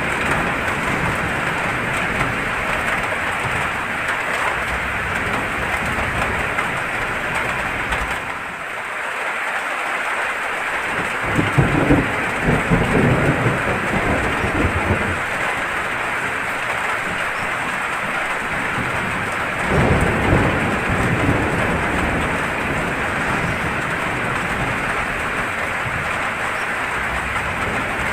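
Steady heavy rain with rolling thunder. Two louder rolls of thunder come about twelve and twenty seconds in.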